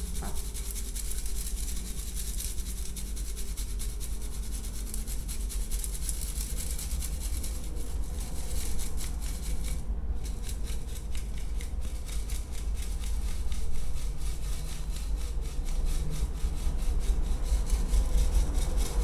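Blended bird-feed powder being sifted through a mesh sieve in an aluminium bowl: a steady rubbing rasp made of many quick strokes, with a brief break about ten seconds in.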